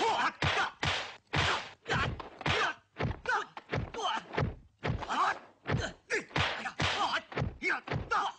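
Dubbed kung fu film fight sound effects: a rapid string of punch and block impacts, two to three a second, with a couple of short breaks.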